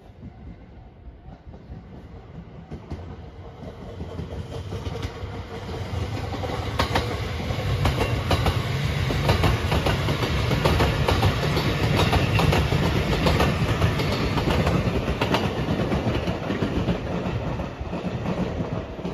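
JR Marine Liner rapid electric multiple unit approaching and passing close by, building up steadily, then easing off near the end. While the cars go by, their wheels give a quick run of clacks over the rail joints.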